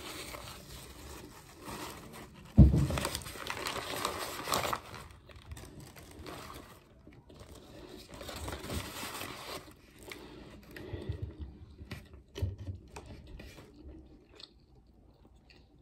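Paper napkins and sandwich wrappers rustling and crinkling as greasy hands are wiped and paper is handled, with chewing between; a sharp thump about two and a half seconds in is the loudest sound.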